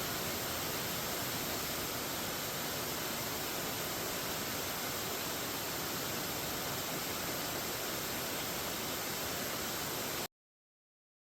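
Steady, even rushing noise with no distinct events, cutting off abruptly about ten seconds in to dead silence.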